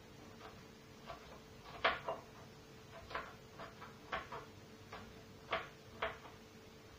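Kitchen knife chopping green pepper into small pieces on a plastic cutting board: irregular light taps of the blade on the board, the loudest about two seconds in.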